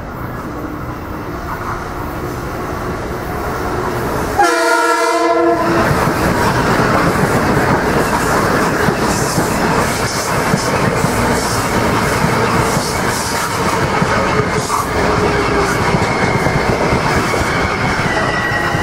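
Metro-North electric commuter train approaching, its rolling noise growing louder. A little over four seconds in it sounds one horn blast of about a second and a half. It then passes close by with a steady rush of wheels on rails.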